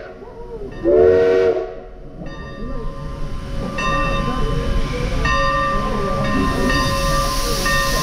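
A steam locomotive whistle gives one short blast about a second in. Then the train gets under way, with a steady rumble and a high, steady metallic squeal from the wheels.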